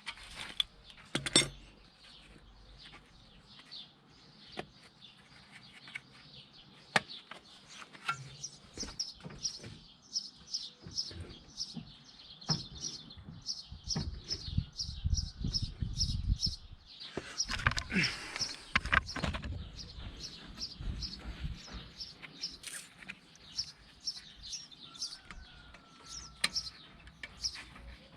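Small birds chirping over and over, with scattered sharp clicks and knocks and a stretch of low rumble about halfway through.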